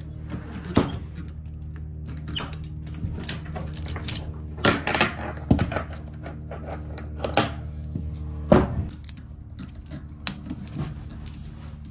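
Steel ratchet strap being worked by hand: irregular sharp metallic clicks and clinks from the ratchet mechanism and hardware, over a steady low hum.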